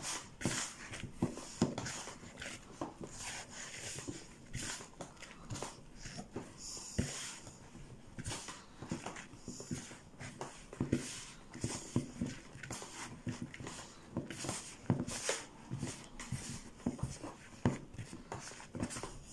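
Hands pressing and rubbing crumbly pastry dough in a plastic mixing bowl, making irregular squishing and rustling strokes.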